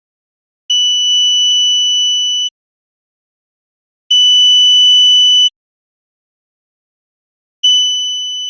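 Buzzer of a homemade IR flame-sensor fire alarm sounding: three long, steady, high-pitched beeps, each about a second and a half long and about three and a half seconds apart, with silence between them.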